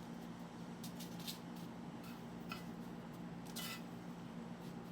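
Metal spoons working soft crab-cake mixture and panko crumbs: a few brief, soft scrapes and clicks about a second apart, over a steady low hum.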